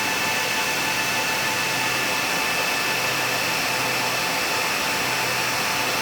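Steady whir of cooling fans blowing air, with a few steady high-pitched tones on top, unchanging throughout.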